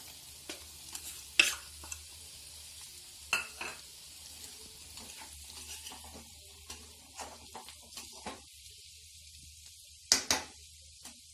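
Steel spatula stirring diced potatoes into frying chana dal in a metal kadhai. It scrapes and ticks against the pan, with sharp clanks about a second and a half in, at about three and a half seconds, and near the end, over a faint sizzle of frying.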